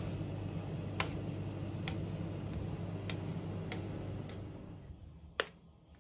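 Metal spatula tapping and clicking against the frozen steel plate of a rolled-ice-cream pan as it scores the ice cream sheet into strips: about seven sharp taps roughly a second apart, the loudest near the end. A steady low machine hum underneath fades out after about four and a half seconds.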